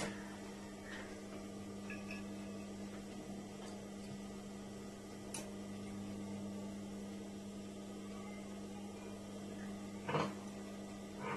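Steady electric hum of a Juki industrial sewing machine's running motor, with one sharp click about five seconds in and a brief louder noise near the end.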